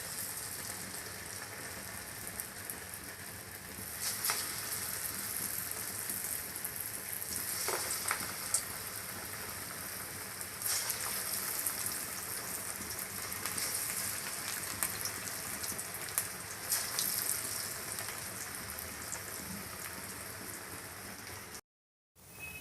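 Moong dal pakoras deep-frying in hot oil: a steady sizzle with scattered pops and crackles. The sound cuts out briefly near the end.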